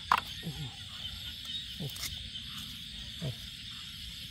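Night chorus of crickets and other insects, a steady high-pitched trill. Three short calls slide down in pitch about a second and a half apart; the first, just after the start, is the loudest.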